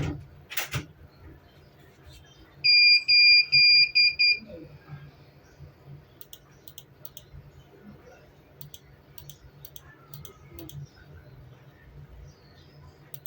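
Electronic beeper sounding a quick run of about five short, high, loud beeps, then stopping; faint light clicks follow.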